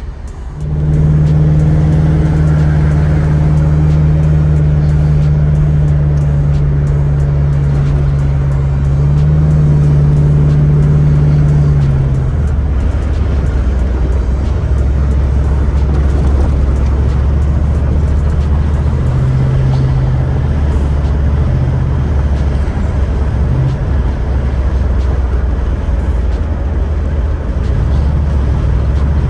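Car on the move with music playing over it, carried by a heavy, steady bass that drops to a lower note about twelve seconds in.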